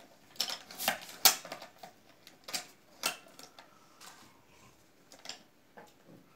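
Irregular sharp clicks and clacks from a hand-worked cigarette tube-filling machine as its metal lever and slide are moved and paper tubes are fitted and set down. The loudest cluster comes in the first second and a half.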